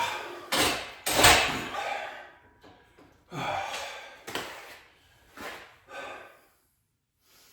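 A man breathing hard from exertion on lat pulldowns: a run of loud exhales that come less often and get weaker toward the end. There are a couple of heavy thuds about a second in.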